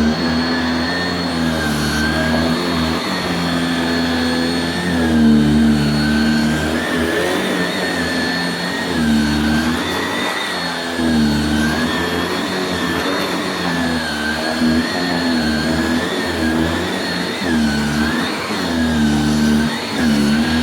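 Shark Rotator Powered Lift-Away NV680UKT upright vacuum cleaner running, a steady drone with a high whine, its pitch dipping and recovering every couple of seconds.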